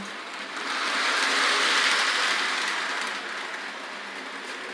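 HO scale model train rolling past on its track: a whirring rush of small wheels and motors that swells about a second in and fades as the train moves on.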